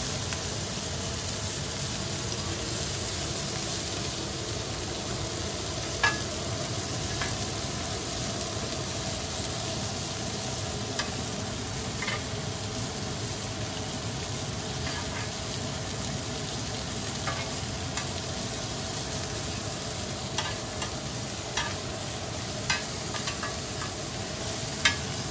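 Head-on shrimp sizzling in oil on a hot stovetop grill pan, a steady frying hiss. Metal tongs click against the pan now and then as the shrimp are lifted out, more often near the end.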